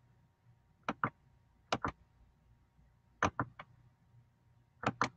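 Computer mouse clicking: four quick bursts of sharp clicks, most heard as a press-and-release pair, spread over a few seconds.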